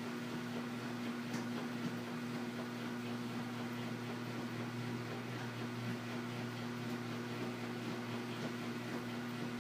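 Washing machine running with a steady motor hum over a constant whooshing noise, with a few faint ticks.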